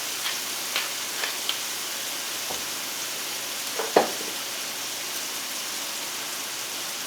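Diced tomatoes, garlic and balsamic vinegar sizzling steadily in olive oil in a hot frying pan. A few light clicks come in the first second and a half, and one louder knock comes about four seconds in.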